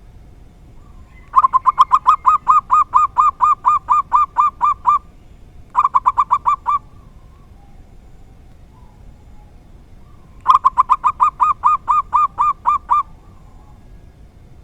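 Zebra dove (perkutut) singing in three bouts of rapid, evenly repeated cooing notes, about five a second. The first bout is long, the second short, and the third comes a few seconds later.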